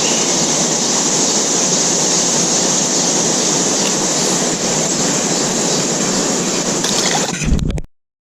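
Steady rush of flowing river water, cut off abruptly near the end.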